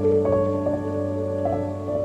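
Soft ambient keyboard music: held notes, with a few new melody notes coming in over them.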